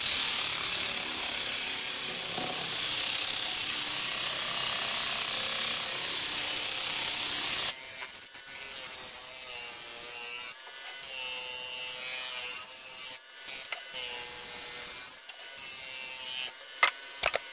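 Shop-made disc sander running with the edge of a walnut cutting board pressed against its disc: a steady, loud sanding hiss for about the first eight seconds, then shorter, broken passes.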